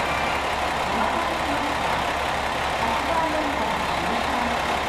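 Railway station platform ambience: a steady low hum and rumble, with faint distant voices now and then.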